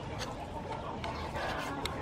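Steel cleaver slicing raw pork on a wooden chopping board, with two light knocks of the blade against the board, one just after the start and one near the end.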